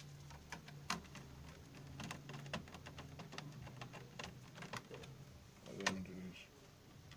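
Irregular light plastic clicks and taps as a hard drive is handled and seated in a Gateway laptop's hard-drive bay, with a sharper knock about a second in and another near six seconds.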